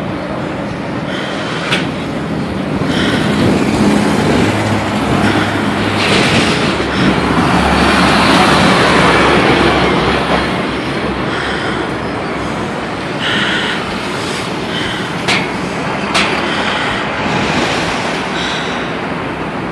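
Loud, dense vehicle and transit noise: a steady rumble and hiss that swells for a few seconds in the middle. A few sharp clicks come later on.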